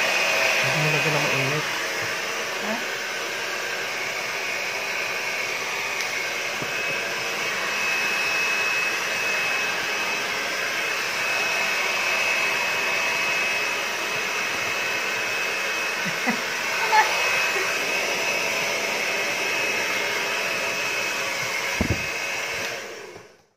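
Handheld hair dryer running steadily, a rushing blow with a thin high whine. There is a brief knock shortly before it stops suddenly near the end.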